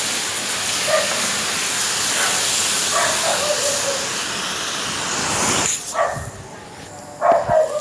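A loud, steady hiss that cuts off suddenly about six seconds in, with a dog giving a few short yips, the loudest near the end.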